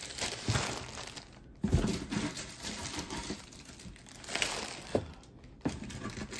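Hands rummaging through a container of vintage and costume jewelry, packaging crinkling and pieces clinking, with a sudden louder clatter near two seconds in and a sharp click about five seconds in.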